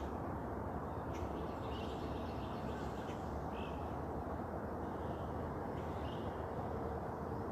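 Birds giving several short calls over a steady low rushing background.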